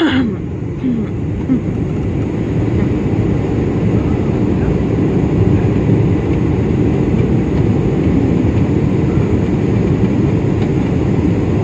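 Steady, loud roar of an airliner's engines and rushing air, heard from inside the cabin during the final approach to landing.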